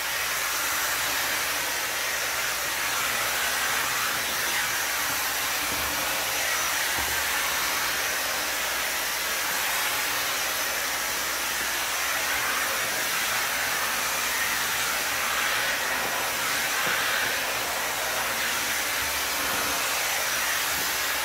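Handheld 5-in-1 hot-air dryer brush with its paddle-brush attachment running, giving a steady, even rush of blown air.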